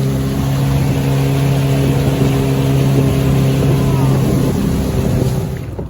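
Boat outboard motor running steadily under way, with rushing wind and water noise; the motor sound drops away suddenly near the end.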